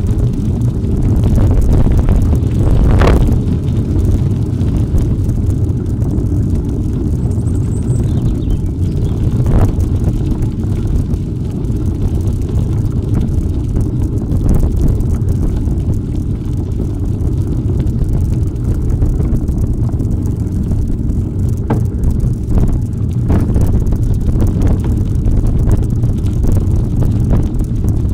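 Wind buffeting the microphone of a camera riding along on a bicycle, a steady low rumble, with a few short knocks from the bike scattered through it.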